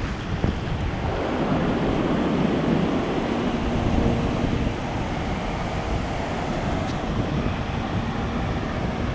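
Surf breaking on a beach with wind buffeting the microphone, a steady rushing noise.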